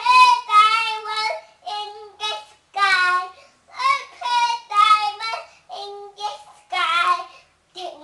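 A boy of nearly four singing on his own in short phrases of held notes that step up and down in pitch, with no accompaniment.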